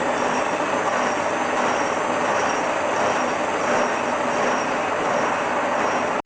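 A metalworking machine tool running steadily while cutting steel T-nut stock: a dense grinding noise with a faint high whine over it. The sound drops out for an instant near the end, then resumes.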